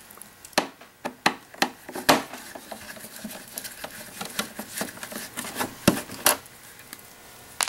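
Irregular small metallic clicks and taps of a T15 Torx screwdriver turning out a screw in a metal cup-warming plate, about a dozen spread over several seconds.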